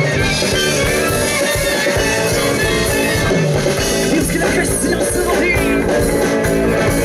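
Rock song's instrumental intro: electric guitar and a drum kit playing steadily.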